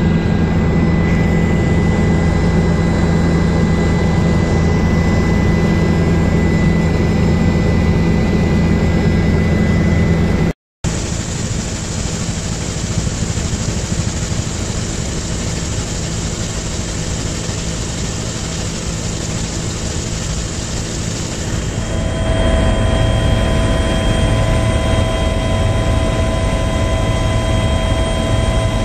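Steady engine and road noise from a running vehicle. It breaks off for a moment about ten seconds in and shifts to a different steady hum about three quarters of the way through.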